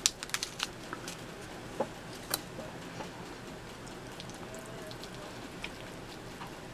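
Pepper flakes shaken from a small paper packet onto a pizza slice: a quick cluster of crackly ticks at the start. Then biting into and chewing the pizza, with scattered soft clicks.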